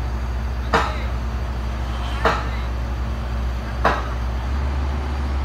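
A heavy diesel engine idling steadily, with three sharp knocks about a second and a half apart.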